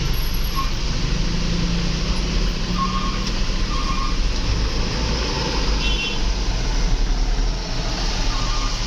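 Steady engine and road rumble of a vehicle driving, with a few faint short high beeps about three and four seconds in and again near the end.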